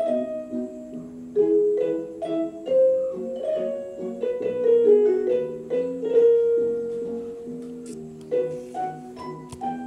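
Background music: a light melody of short pitched notes over a repeating lower accompaniment.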